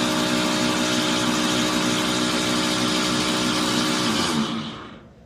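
Samsung washing machine running with a loud, steady grinding noise over a constant hum, which dies away and stops near the end. The grinding is a worn plastic gear grinding against a metal gear.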